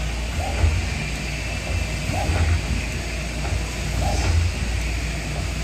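Steady low hum of running machine-shop machinery, with a short sound recurring about every two seconds.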